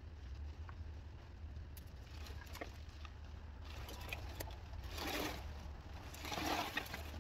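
Old roofing debris rustling and clattering as it is prodded and shifted with a stick, with scattered light clicks and two louder scraping rustles, about five seconds in and again a second or so later.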